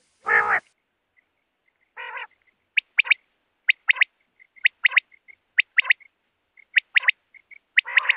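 Common quail (batair) song: from about three seconds in, phrases of three quick, sharp notes ('wet-my-lips') repeat about once a second. Two short, lower, rougher calls come before them.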